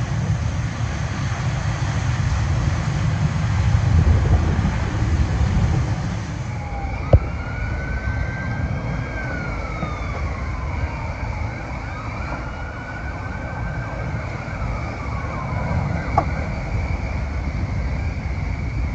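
A distant emergency-vehicle siren wailing, rising and falling slowly twice, over the low rumble of a large structure fire and the fire apparatus working it. A broad hiss cuts off abruptly about a third of the way in, and a single sharp crack comes just after.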